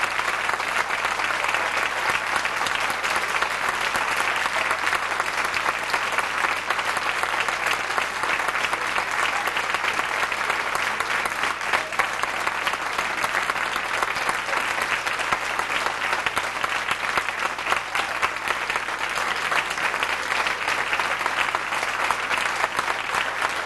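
Concert audience applauding steadily: dense, even clapping that holds at one level throughout.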